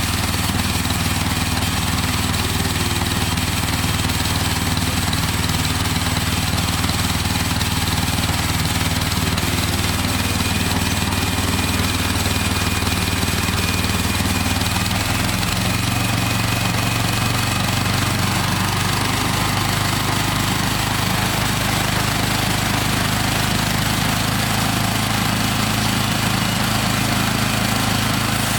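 Small engine of a portable band sawmill running steadily; its low hum shifts about halfway through.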